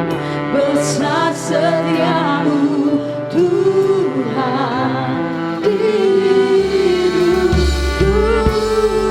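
Live worship band playing a slow song, with a singer's wavering, held notes over sustained chords. A low bass comes in about seven and a half seconds in.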